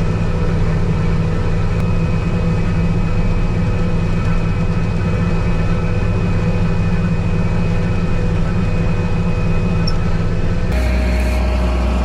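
New Holland TR89 combine harvester running as it harvests wheat, heard inside the cab: a steady engine drone with a thin high whine over it. Near the end it changes abruptly to a deeper steady hum of the machine heard from outside.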